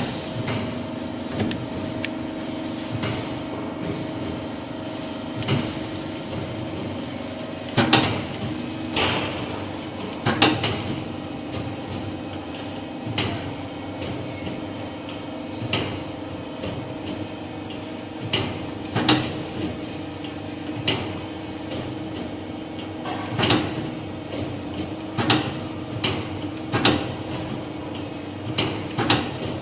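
Band saw blade sharpening machine running: a steady motor hum from the grinding head, with sharp mechanical clacks every second or two as it works along the blade.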